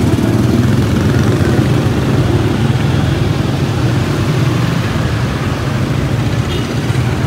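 A motor vehicle engine running steadily at close range: a loud, even low hum with no change in pitch.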